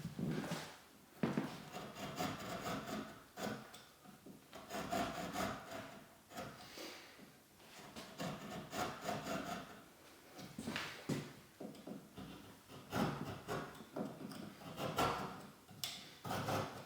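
Knife blade scoring a wooden door jamb along a hinge outline, a run of irregular scraping strokes with a few sharper, louder cuts. This is the first step of cutting a hinge mortise.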